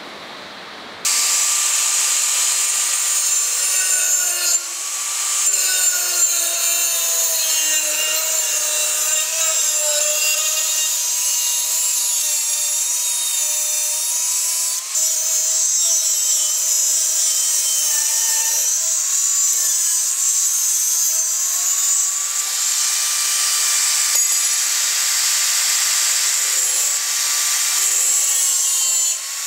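Angle grinder with a thin cut-off disc cutting through a steel circular saw blade: a high motor whine over a loud hiss, starting abruptly about a second in. The whine drops in pitch as the disc bites into the steel and rises again as the load eases.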